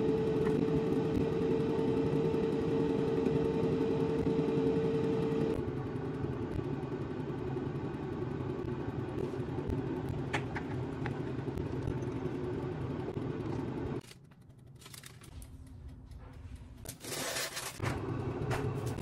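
Steady mechanical hum with a held tone for the first five seconds, then a quieter hum; it drops away about fourteen seconds in and returns near the end after a brief rustle.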